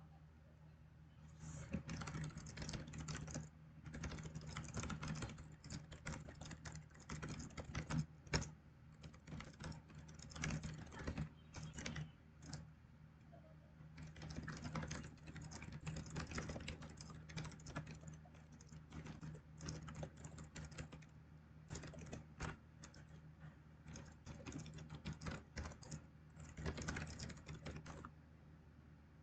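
Typing on a computer keyboard in quick bursts with short pauses, over a steady low electrical hum.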